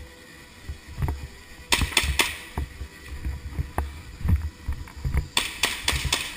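Airsoft guns firing: sharp cracks in two quick volleys, three a little under two seconds in and four near the end, over irregular low thumps of movement and footsteps.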